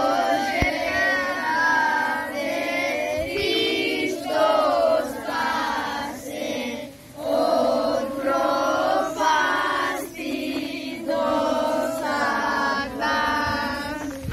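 A group of young boys singing together in unison, phrase after phrase, with a brief pause for breath about seven seconds in.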